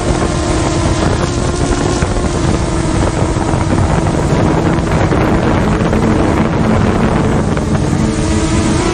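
An engine running steadily, with a steady drone and heavy wind noise on the microphone.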